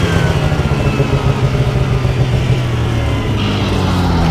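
Arctic Cat snowmobile engine running as the machine crosses the ice. Its note falls steadily as the sled slows down.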